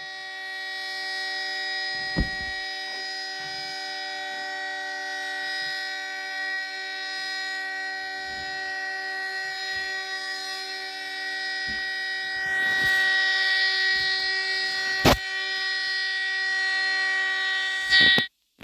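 Emergency alert tone: a steady chord of several held notes, like a horn, sounding unbroken for about eighteen seconds and cutting off suddenly near the end. A couple of sharp clicks occur, one about two seconds in and a louder one near fifteen seconds.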